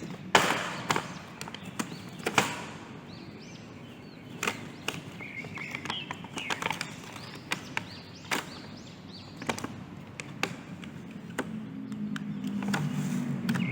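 Hands handling a boxed toy figure and its packaging: scattered sharp clicks and taps with a few short squeaks.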